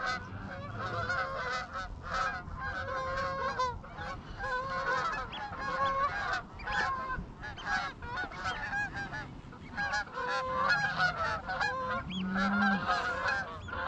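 A large flock of Canada geese honking constantly, many birds calling over one another.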